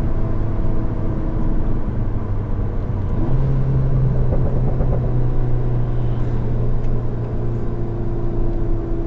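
Seat Leon Cupra 300's 2.0-litre turbocharged four-cylinder engine and stock exhaust heard from inside the cabin: a steady low drone. Its pitch steps up slightly a little after three seconds and then holds.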